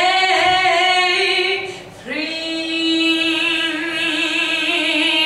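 A young woman sings into a handheld microphone, holding two long notes with a short break between them. The second note is held steady, then takes on a widening vibrato near the end.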